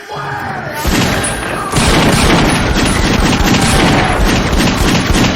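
Shootout gunfire: a dense, rapid volley of gunshots starting about a second in, getting louder and running on without a break.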